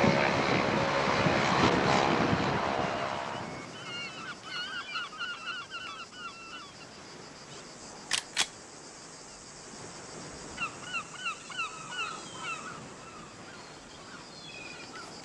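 A loud engine drone fades out over the first three seconds or so. Birds then call in quick repeated runs, broken about eight seconds in by two sharp pistol shots close together, after which the bird calls resume.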